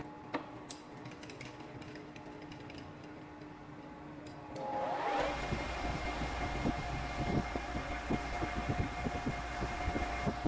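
Metal lathe starting up about halfway through, its whine rising in pitch as the chuck spins up, then running steadily with a constant whine and irregular light knocking. Before it starts there are only a few faint clicks.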